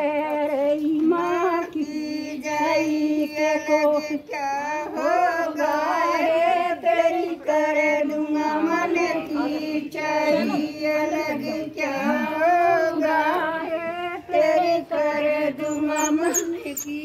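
Women singing a folk song, one continuous melody with long wavering held notes.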